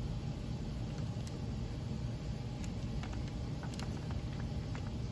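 Steady low room hum with a few faint, light clicks scattered through it.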